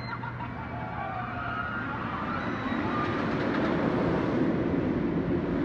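Steel roller coaster train running along its track, a rumbling roar that grows louder about halfway through.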